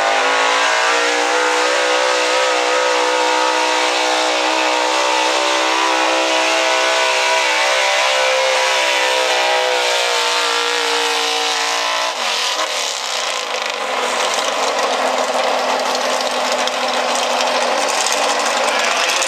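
Gas engine of a red square-body Chevrolet 4x4 pulling truck running flat out at high revs under load while dragging the pulling sled. About twelve seconds in the engine note drops away sharply as the pull ends, and it runs lower to the end.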